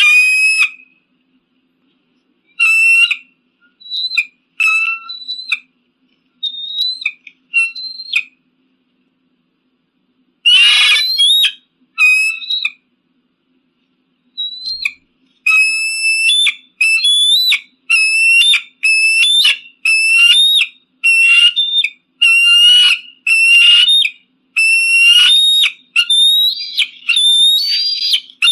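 Eagle calling with high, thin whistled cries. The cries come singly at first, with one rougher squawk about ten seconds in, then repeat about once a second through the second half.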